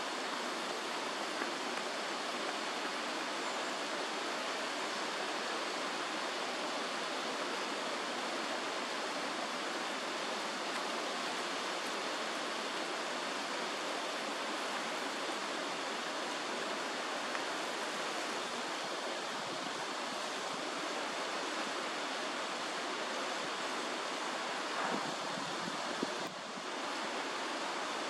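Steady, even rushing noise with no bird calls, dipping briefly about 26 seconds in.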